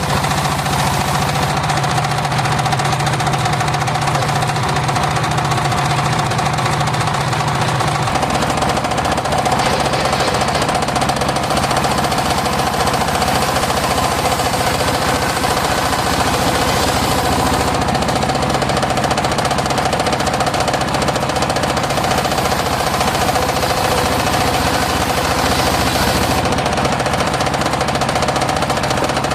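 Homemade engine-driven circular sawmill running steadily as it saws mahogany. There is a steady whine over the engine, and the engine note changes about eight seconds in.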